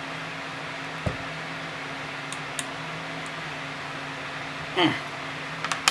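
Steady fan-like hum with two low tones. Over it, a dull knock about a second in and a few faint clicks from the clamp-on muzzle brake's screws being tightened in quarter turns, a short voice sound near the end, and a sharp click right at the end.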